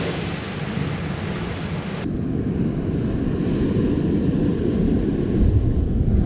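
Ocean surf breaking and washing up a sandy beach, with wind buffeting the microphone. The high hiss drops off suddenly about two seconds in, and a heavy low wind rumble grows near the end.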